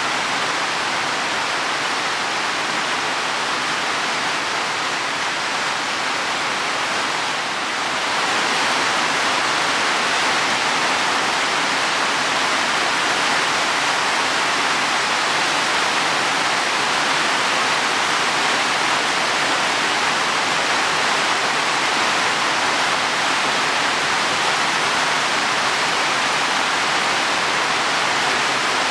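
Heavy rain falling on leaves and soil, a steady hiss that grows a little louder about eight seconds in.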